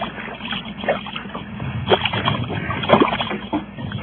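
Water splashing as a hooked largemouth bass is fought beside a small boat: irregular splashes and knocks, the loudest about two and three seconds in, over a low steady hum.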